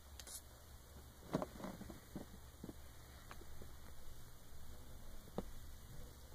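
A few faint, scattered taps and knocks over a low steady hum, the loudest about a second in.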